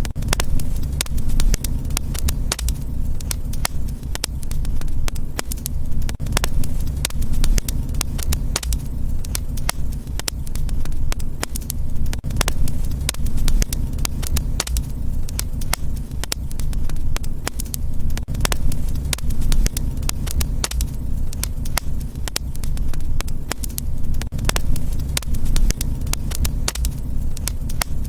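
Wood fire crackling, with many sharp pops and snaps in quick succession over a steady low rumble.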